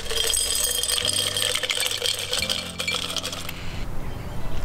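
Ice cubes poured from a stainless steel shaker into a glass mason jar mug, clinking and rattling against the glass for about three and a half seconds before stopping.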